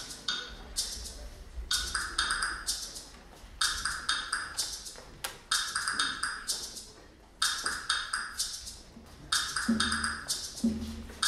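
Dance music with a percussion beat of sharp wooden knocks in clusters about every two seconds; a low-pitched instrument joins in near the end.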